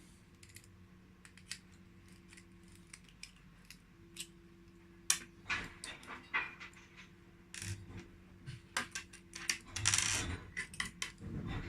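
Small metal folding-knife parts clicking and clinking against each other and a hard surface as the knife is handled and taken apart. The clicks are sparse at first, come thicker from about halfway, and include a short scraping rub near the end.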